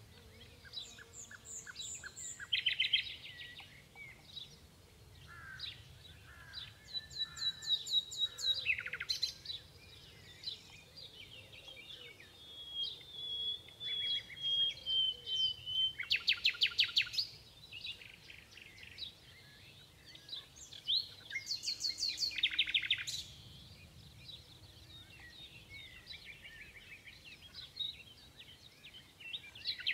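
Common nightingale singing: varied phrases separated by short pauses, mixing rapid runs of repeated notes, trills and pure whistled notes, with one long, slightly falling whistle about halfway through.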